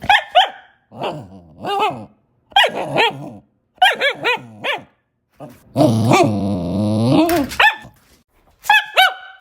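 A dog barking in short bursts of one to three barks, with one long, drawn-out growling bark about six seconds in.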